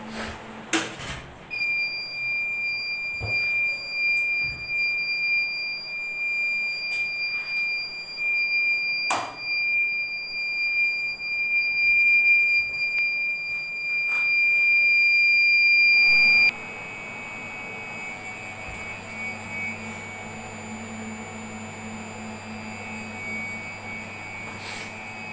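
A UPS audible alarm buzzer sounds one continuous high-pitched tone for about fifteen seconds, growing louder, then cuts off suddenly. A steady electrical hum and fan noise from the equipment are left after it.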